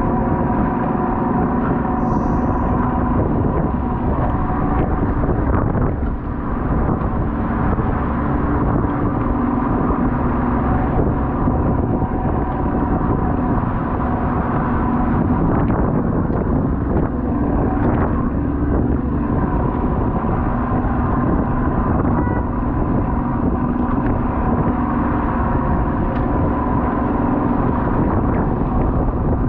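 Crab fishing boat's engine running steadily, a constant hum under a rushing noise.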